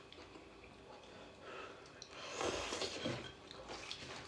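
A person eating close to the microphone: quiet chewing, then a louder slurp or mouth noise about two to three seconds in, with a few light clicks after.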